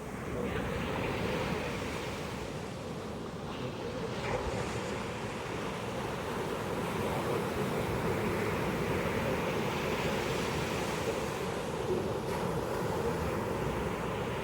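Pacific ocean waves breaking and washing up a beach in a continuous surf rush, swelling about a second in and again midway, with some wind on the microphone.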